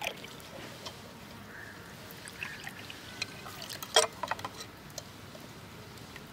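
Watermelon juice pouring from a steel jug into small glasses, a faint trickling and splashing stream, with scattered small clicks and one sharp click about four seconds in.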